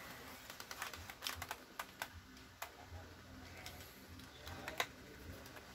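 Irregular light clicks and taps from hand work with a craft knife and plastic polarizer film, a few in quick succession about a second and a half in and again near the end.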